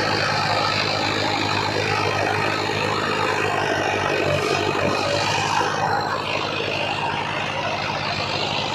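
Tractor diesel engine running steadily.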